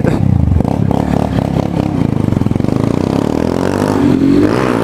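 Motorcycle engine running with a rapid pulsing beat, rising in pitch near the end as it accelerates.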